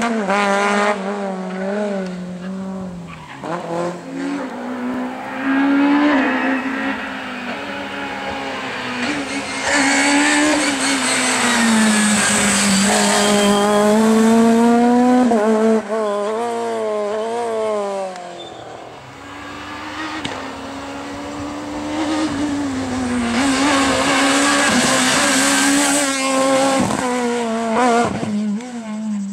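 Rally cars, Renault Clios among them, driven flat out past the roadside, one after another. Engines rev hard, with the pitch climbing and dropping again and again through gear changes and braking. A few sharp cracks come near the end.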